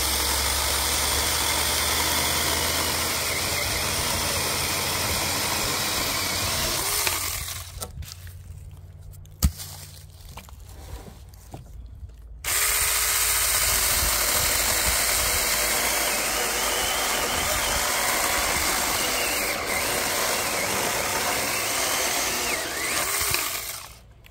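Saker 4-inch cordless mini electric chainsaw cutting through logs. Its motor and chain run steadily for about seven seconds, stop for about five seconds, then run again for about eleven seconds before stopping near the end.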